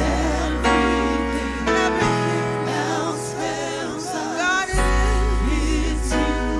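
A gospel praise team singing, a lead voice with backing singers, over a live band with bass guitar and keyboards; deep bass notes change twice under sustained chords.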